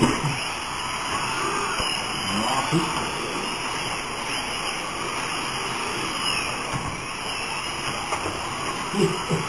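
Several Kyosho Mini-Z AWD radio-controlled drift cars running on a track: small electric motors whine up and down over a steady hiss. Faint voices come in briefly a few times.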